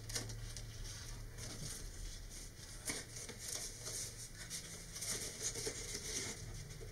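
Light, irregular clicks and rustling of a thin vacuum-formed plastic wrap being handled and fitted around a model rocket body tube.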